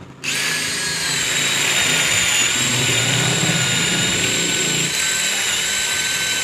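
Cordless drill run at full speed, spinning a flaring bit into the end of a half-inch pipe to form a 45-degree flare. A steady high whine starts a moment in and stops suddenly near the end.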